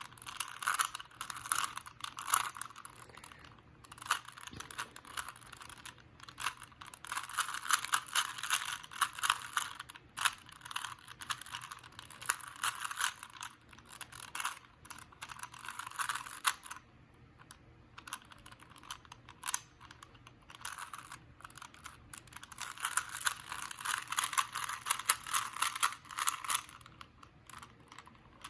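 Plastic Rubik's cube being turned rapidly: a dense clicking and clacking of the layers in flurries, with short pauses between them.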